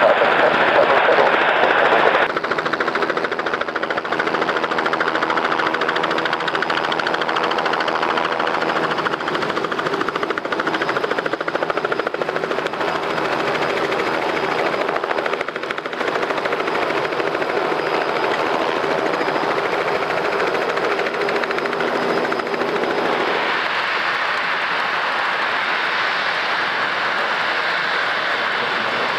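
Jet airliner engines running, a steady roar with a low hum under it, heaviest in the first couple of seconds and changing in tone about 23 seconds in.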